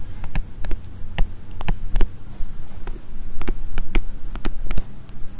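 Irregular sharp clicks and taps from handwriting on a computer with a digital pen or mouse, over a steady low electrical hum.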